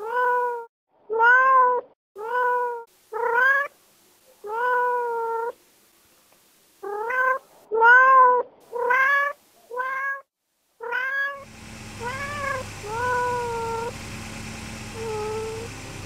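A kitten meowing over and over, a string of about a dozen short meows with brief pauses between them. About eleven seconds in, background music comes in under the last few meows.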